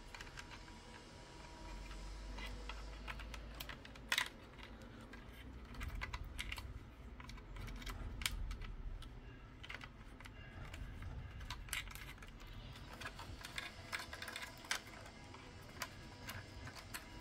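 Scattered small clicks and scrapes of a metal antenna bracket and its cable being handled and fitted into a slot in a Dell OptiPlex Micro's steel chassis, with one sharper click about four seconds in.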